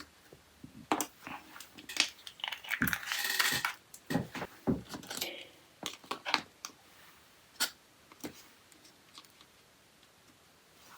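Clicks, taps and rustling from nail-art tools and bottles being handled on a work table, a busy run of small knocks over the first eight seconds or so, then only a few faint ticks.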